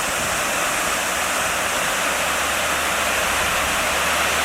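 A steady, loud rushing noise like running or falling water, even throughout and with no distinct events.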